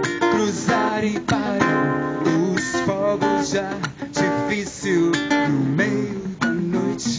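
Live guitar music: a strummed acoustic guitar with a second guitar picking melodic lines over it, some notes sliding in pitch.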